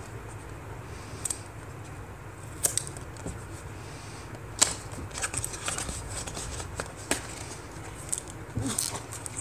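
Small cardboard box being opened by hand: the sealed end flap is worked loose and pulled open, with scattered sharp cardboard clicks and scrapes, the loudest snap about four and a half seconds in.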